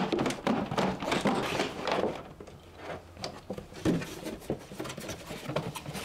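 A broken air fryer being tilted and handled, its housing knocking and a loose object rolling and rattling around inside it. The loose part is a metal key that had fallen in and shorted the appliance out. The knocking is busiest in the first couple of seconds, then thins to scattered clicks.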